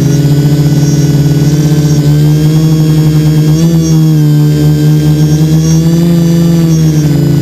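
Electric motors and propellers of an HT-FPV quadcopter buzzing steadily in flight, heard loud and close from the GoPro mounted on it. The pitch steps up a little about two seconds in and wavers around the four-second mark as the throttle changes.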